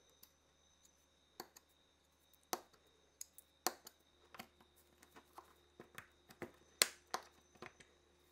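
Scattered light clicks and taps, about fifteen at irregular intervals, the sharpest one near the end, from small cordless-drill parts and hand tools being handled.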